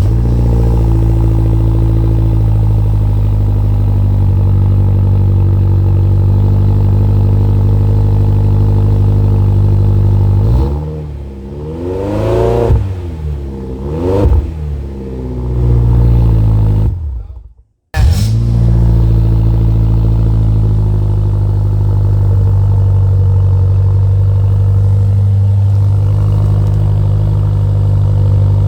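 BMW M-series car engine idling steadily. Around the middle it is revved twice, rising and falling in pitch each time. The sound then cuts out for about a second and comes back at a steady idle.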